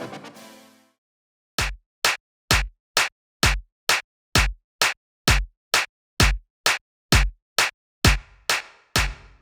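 A synth chord's reverb tail dies away in the first second. After a short silence, a soloed drum track starts: kick and snare hits about twice a second, dry and clipped at first. From about eight seconds in, each hit trails a short room-reverb tail.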